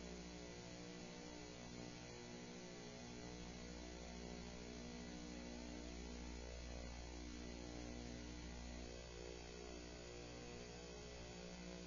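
Steady electrical mains hum: a low buzz of evenly stacked tones over a faint hiss, unchanging throughout.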